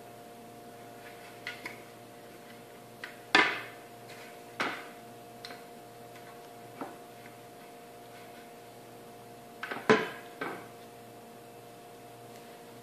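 Scattered clinks and knocks of a benchtop centrifuge's plastic housing and metal base being handled and set down while it is taken apart, about six in all, the loudest about three and a half seconds in and again near ten seconds. A faint steady hum runs underneath.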